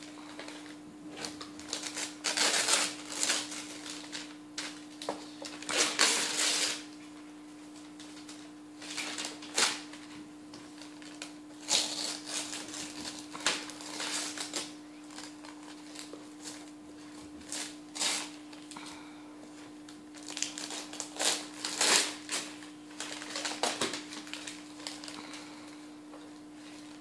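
Christmas wrapping paper being torn and crinkled off a gift box by hand, in irregular bursts of ripping and rustling. A faint steady hum runs underneath.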